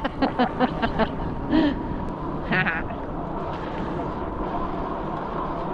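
Moving e-bike heard from the rider: steady wind and riding noise with a faint steady whine. A quick run of short voice sounds, like laughing, fills the first second, and a short warbling call comes near the middle.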